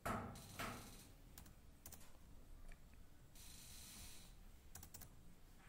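Faint, scattered computer keyboard keystrokes and clicks as text is edited.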